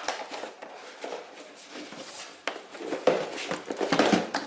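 Rustling and light knocks of cardboard and packaging being handled while a boxed keyboard is unpacked, with a few sharp clicks and louder rustling from about three to four seconds in.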